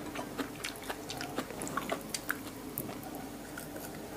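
Close-up wet chewing and lip-smacking of a person eating raw beef liver with fresh herbs: a steady scatter of small clicks and squelches from the mouth.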